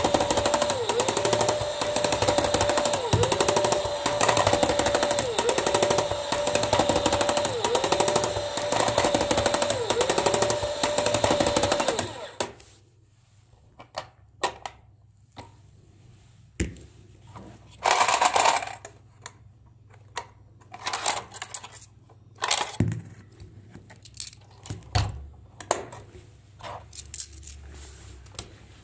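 Coin-bank toy's small motor and plastic gear train running fast and clattering, driven at 10 volts from a bench power supply, its whine dipping about every two seconds as the kicking figure's mechanism loads it. It stops suddenly about twelve seconds in, and scattered clicks and plastic knocks from handling the toy follow.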